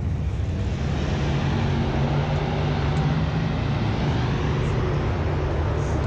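A car engine running at low revs, its hum a little stronger in the middle, over a steady outdoor hiss.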